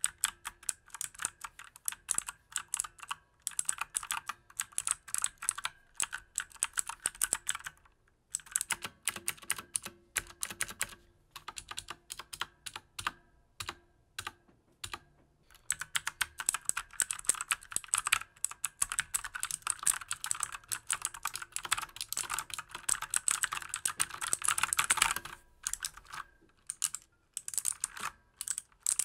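Fast typing on a mechanical keyboard with Outemu Blue clicky switches. Quick runs of sharp key clicks are broken by a few short pauses.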